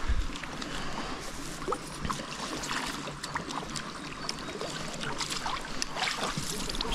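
Landing net dipped into pond water and drawn through it: irregular splashing and dripping, with a knock as it starts.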